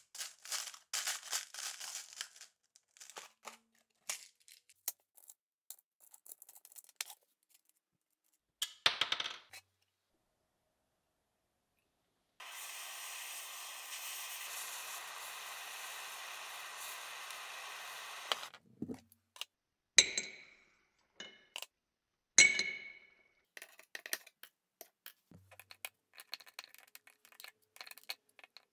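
Screws and small metal parts rattling and clicking as a hand rummages through a plastic drawer organiser. Then a gas torch flame hisses steadily for about six seconds, followed by two sharp ringing clinks and some light handling clicks.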